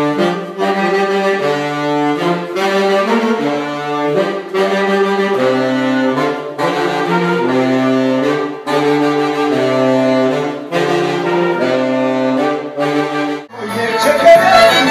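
A small horn section of baritone saxophone, a second saxophone and trumpet playing a riff in harmony, in phrases of held notes broken by short gaps about every two seconds. About 13.5 seconds in it gives way to a fuller, louder band recording.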